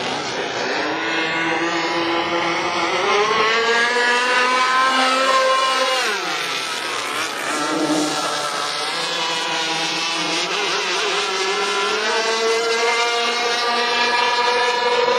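Engines of a quad-engine radio-controlled model racing catamaran running flat out, their pitch climbing as the boat accelerates. The pitch falls sharply about six seconds in, then builds again and holds high.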